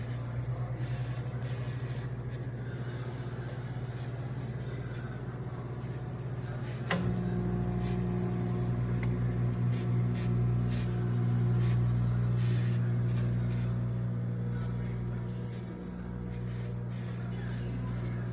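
Countertop microwave oven running with a steady low hum; about seven seconds in there is a sharp click and the hum turns louder and fuller.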